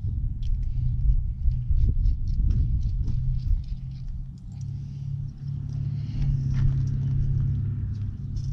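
A steady low rumble, with many short light clicks of small metal fasteners and hardware being handled beside a headlight guard.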